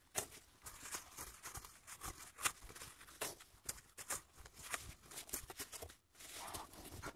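Packed snow crunching and scraping in an irregular run of sharp strokes, with a longer scrape near the end that cuts off suddenly.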